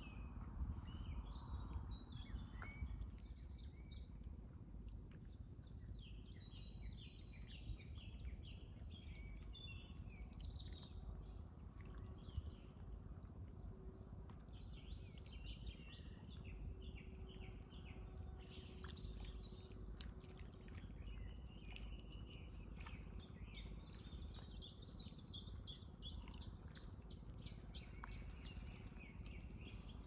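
Several small songbirds chirping and singing, with fast repeated trills, over a steady low outdoor rumble.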